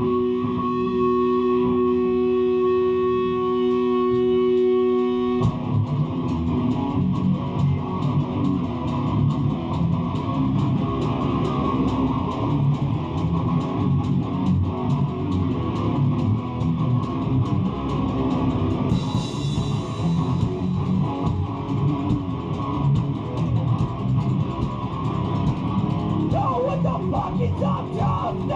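Hardcore band playing live: a held electric guitar note rings out, then about five seconds in the drums, distorted guitar and bass come in together on a heavy, fast riff.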